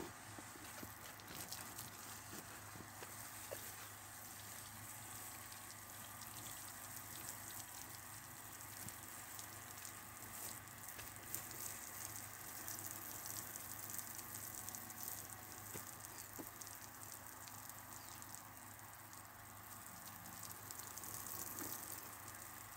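Faint, steady spray of water from a watering-can rose on the end of a garden hose falling onto freshly sown, wet soil, the hose gravity-fed from a storage drum.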